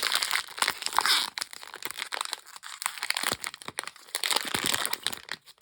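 A foil blind bag being torn open and crinkled in the hands, with a dense run of crackles and rustling, loudest in the first second or so.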